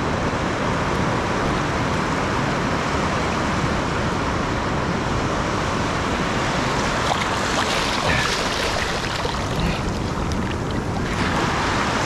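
Shallow surf washing in and out around a person's feet at the water's edge, a steady rushing hiss of water; it swells as a wave washes in near the end.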